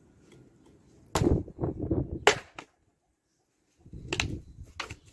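Hatchet chopping firewood on a tree-stump chopping block: about five sharp wooden strikes, the loudest a little over two seconds in, with dull knocks of the wood between them.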